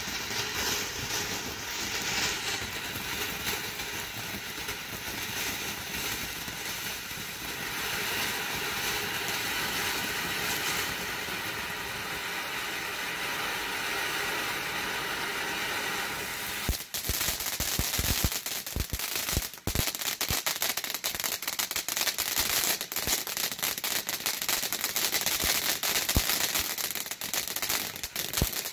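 Sky Bacon 'Temple of Fire' ground fountain firework burning: a steady loud hiss of spraying sparks. About two-thirds of the way through it breaks into rapid crackling and popping over the hiss.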